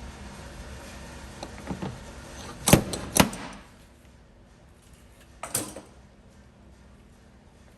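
Three sharp knocks: two loud ones about half a second apart, and a weaker one a couple of seconds later. A steady low hum underneath drops away just after the first pair.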